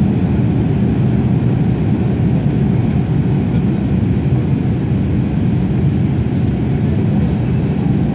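Steady low cabin noise of an Airbus A330-300 in flight, engine and airflow noise heard from a seat over the wing while the airliner descends toward landing.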